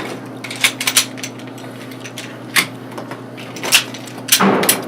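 Sharp clicks and clacks of Smith & Wesson M&P parts being handled and fitted together during disassembly and reassembly, with a longer sliding scrape about four and a half seconds in.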